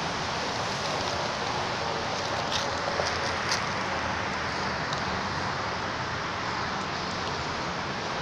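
Steady outdoor background hiss, with a few short crinkling crackles in the middle from a plastic crisp bag being handled.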